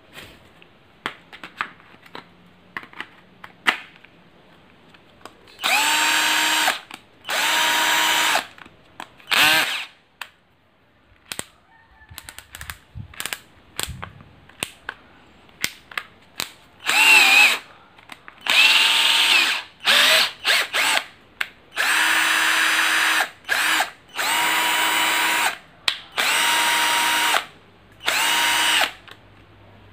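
LOMVUM 12V cordless drill motor run in short trigger bursts, roughly ten of about a second each, whirring up to speed and stopping each time with the chuck empty. A couple of the bursts waver in pitch as the speed changes. Before the first burst come a few light clicks and knocks of the drill and battery being handled.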